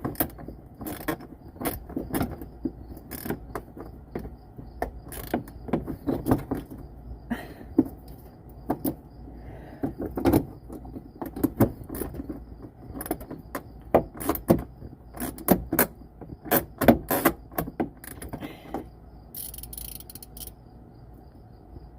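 Irregular clicks, taps and scrapes of a screwdriver working at a stubborn screw on a car's front side marker light housing. The tool keeps slipping and won't grip the screw head. There is a brief rustle near the end.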